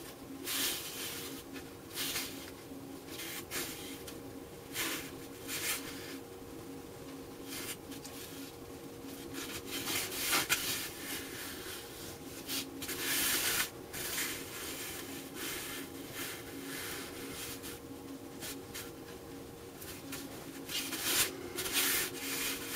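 Hands rubbing and shifting a board of electrolytic capacitors over cardboard: irregular scraping and rustling bursts, over a faint steady hum.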